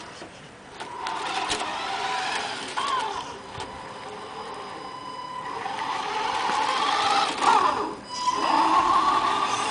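Electric drive motor and gearbox of a Tamiya Knight Hauler radio-controlled truck whining as it drives, the pitch rising and falling as it speeds up and slows. The whine is loudest about seven seconds in, drops out briefly, then comes back strongly near the end.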